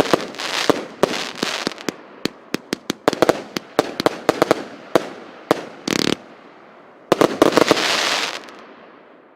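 A 100-shot, 25 mm consumer fireworks cake firing: a rapid series of sharp reports as shells launch and burst, with thicker clusters of fast pops at times. A dense closing volley comes about seven seconds in, then the sound dies away.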